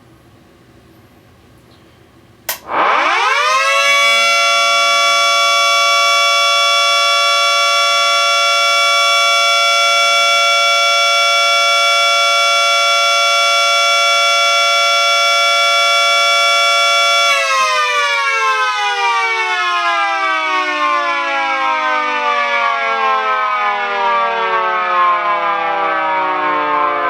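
Miniature Federal Signal 2T22A dual-tone siren switched on with a click, winding up quickly to a loud, steady chord held for about thirteen seconds. It is then switched off and winds down, its pitch falling slowly as the rotor coasts.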